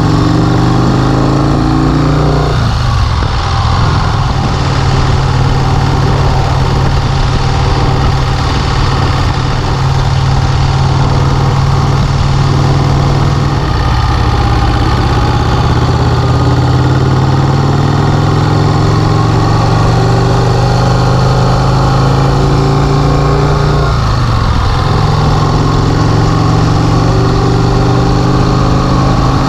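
1951 Vincent Rapide's 998 cc V-twin engine running under way, its pitch climbing as it accelerates and dropping briefly at gear changes about two and a half seconds in and again near the end.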